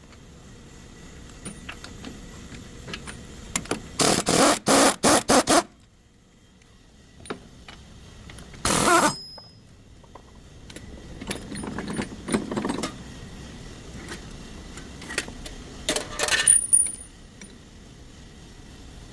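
Hand tools and metal parts clinking and knocking during work on a truck's front wheel bearing, with a quick run of about six sharp metal strikes about four seconds in and a short louder scrape a few seconds later.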